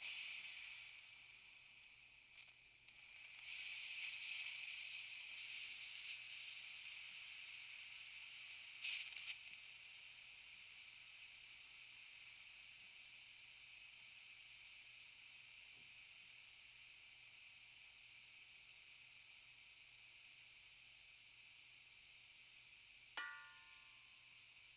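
Compressed air hissing slowly out of a leaking air tank: a steady high hiss that swells for a few seconds early on and spurts briefly once more. A short ringing ping sounds near the end.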